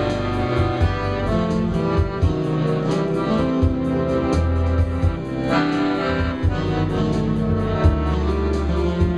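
Piano accordion (a Beltuna) playing a melody with sustained chords over a backing of bass and a steady drum beat.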